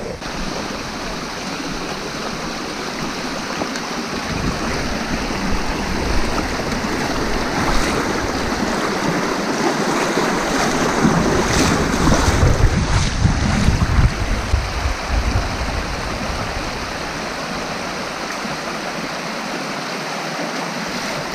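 Steady rush of a mountain river over stones, with wind buffeting the microphone in gusts that are strongest about halfway through.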